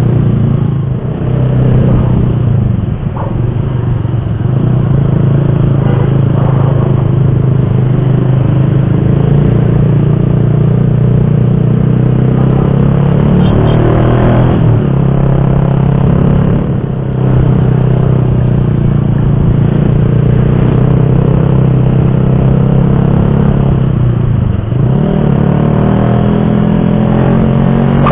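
Motorcycle engine running under way, heard from the moving bike over a low rumble; the engine note dips and climbs back a few times as the throttle is eased and reopened.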